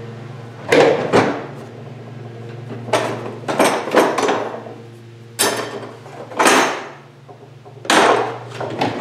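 Wooden drawer of a shop-built router-table stand being slid open and pushed shut several times by hand. There are short sliding runs and sharp wooden knocks as it stops against the frame.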